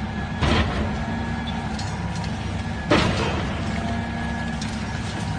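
A heavy vehicle's engine running steadily, with two short loud noisy bursts, one about half a second in and one near three seconds in.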